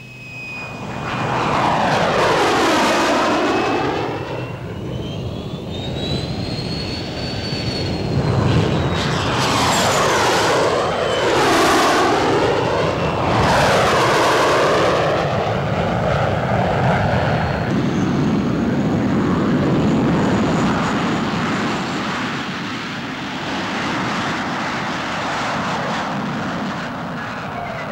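Jet fighter engines as a formation of three takes off and passes low overhead. A high whine rises over the first few seconds and then falls, and several loud rushing passes swell, sweep in pitch and fade.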